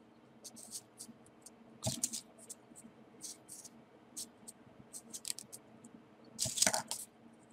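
Folded paper units of a modular 3D origami model being handled and pushed into place: a run of light paper ticks and rustles, with a louder scrape about two seconds in and the loudest one near the end.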